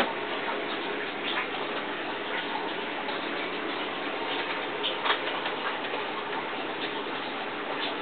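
Water circulating in an aquaponic system: a steady trickling rush with a few scattered drips and clicks, the sharpest about five seconds in.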